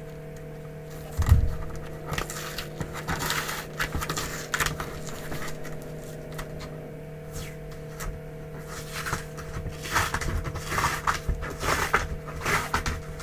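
Cardboard shipping box being handled and worked open by hand: irregular scraping and rustling, with a thump about a second in, over a steady hum.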